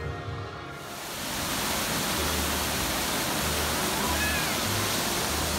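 Ride music fading out in the first second, then a steady rushing hiss of moving water from the Aquatopia ride's pool and fountains.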